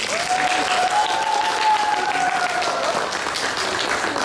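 Audience applauding at the end of a sung piece, with one long high-pitched cheer over the clapping for about three seconds.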